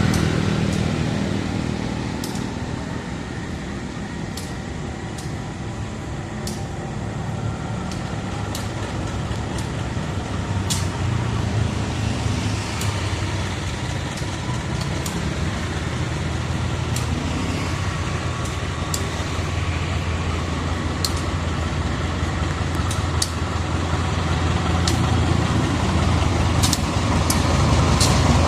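CC 203 diesel-electric locomotive running light during a shunting move, its low engine drone dipping early and then growing louder as it comes closer, with scattered sharp clicks.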